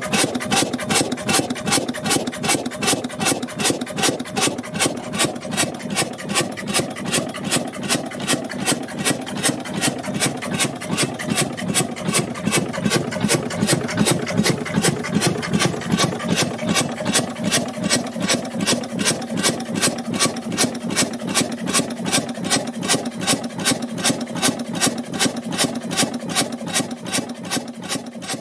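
Deutz MIH-322 single-cylinder four-stroke horizontal diesel engine running steadily at slow speed, its exhaust and valve gear giving an even, rapid beat of about three to four strokes a second.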